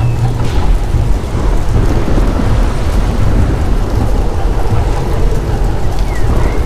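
Mirage volcano show's eruption sound effects: a loud, continuous low rumbling roar, like thunder, played over the show's loudspeakers along with its fire jets.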